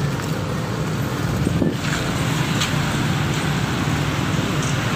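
Steady road traffic noise from passing cars and motorbikes.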